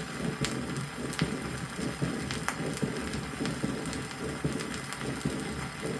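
Heart sounds recorded at the cardiac apex of a patient with combined mitral and aortic valve disease. A weakened first heart sound comes with systolic and diastolic murmurs, heard as a steady whooshing hiss over low, repeated thuds. Scattered clicks from the old vinyl record's surface run over it.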